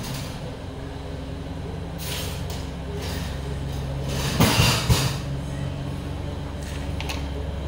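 A machine's steady low hum, with a few short noisy bursts, the loudest about four and a half seconds in.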